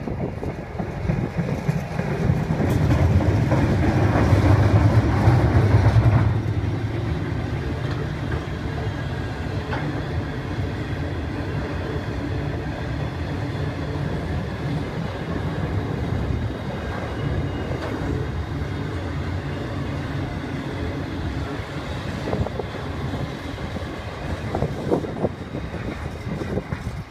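Aurizon 422 class diesel locomotive passing, its engine drone loudest in the first several seconds, then a short rake of empty flat wagons rolling by with a steady wheel rumble and clatter on the rails.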